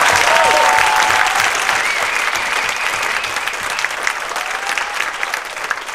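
Audience applauding, with a few cheers near the start. The clapping slowly dies down.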